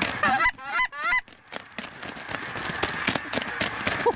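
A large flock of geese honking as it circles overhead. Several loud, close honks come in the first second or so, over the steady massed calling of the whole flock.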